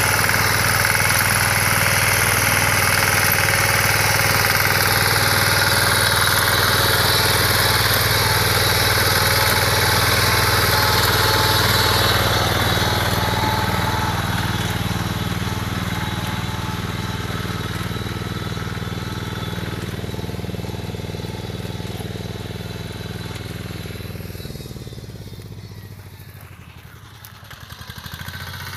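Small engine of a BCS reaper binder running steadily while the machine cuts wheat. It grows gradually quieter from about halfway through, dips near the end, then rises a little.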